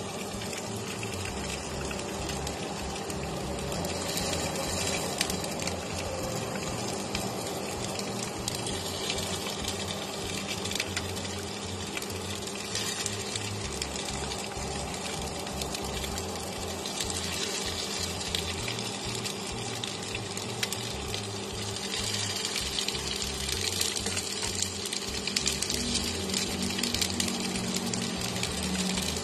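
Stuffed bell pepper pieces sizzling and crackling in hot oil in a frying pan, over a steady low hum.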